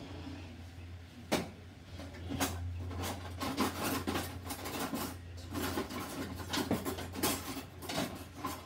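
Kitchen handling noises: a sharp knock, then a busy run of irregular rubbing, scraping and light clattering of kitchen things being moved about, over a steady low hum.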